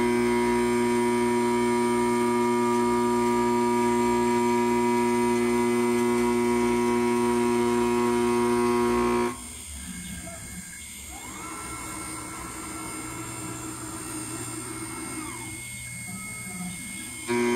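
6040 CNC router spindle with a 6 mm two-flute end mill milling a square steel bar: a loud, steady whine of several fixed tones. About nine seconds in it cuts off abruptly to a much quieter hiss, over which a fainter motor whine rises, holds for a few seconds and falls as the machine traverses. The loud spindle whine returns just at the end.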